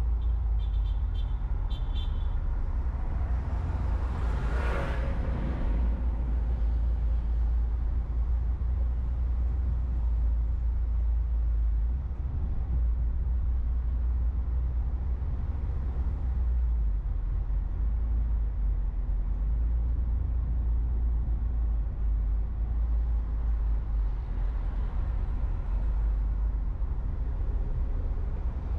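Car driving on a city avenue: steady low rumble of engine and tyres on the road. About five seconds in, a passing vehicle's whoosh swells and fades, with a few quick high ticks just before it.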